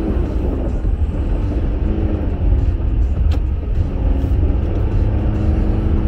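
Interior cabin noise of a Subaru Crosstrek driving on a snow-covered road on Blizzak winter tyres: a steady low rumble from the tyres and engine, with faint held tones over it and a single sharp click about three seconds in.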